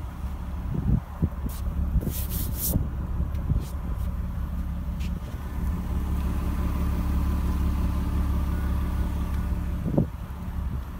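BMW 525i's 2.5-litre straight-six idling steadily, heard at the tailpipes.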